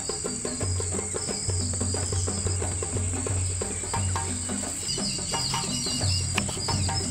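Background music with a steady beat and repeating bass notes, over a continuous high insect trill like crickets, with a few bird chirps near the end.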